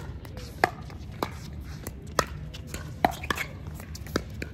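Pickleball paddles hitting the hard plastic ball in a rally: five sharp pops about a second apart, with a few fainter taps in between.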